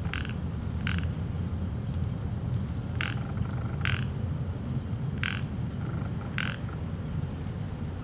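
Six short animal calls at uneven spacing, about a second or two apart, over a steady low rumble.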